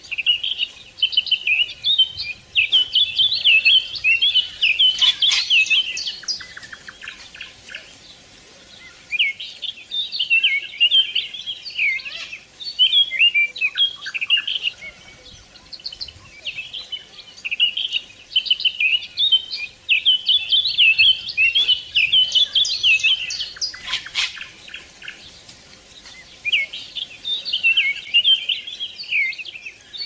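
Small birds singing: bouts of rapid, high chirps and trills lasting several seconds each, with short lulls between them.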